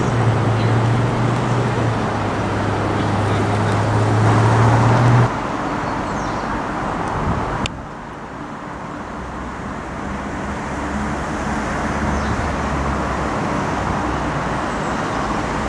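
Steady electric hum of vintage electric locomotives standing at a station platform, over a low drone and general station noise. The hum stops about five seconds in. Near eight seconds the sound drops to a lower drone that slowly grows louder.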